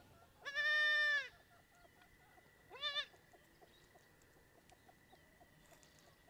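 Goat kid bleating twice: one long call about half a second in, then a short one about three seconds in.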